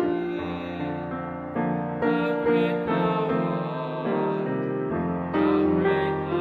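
Slow, gentle instrumental keyboard music: held notes and chords changing about every half second to a second.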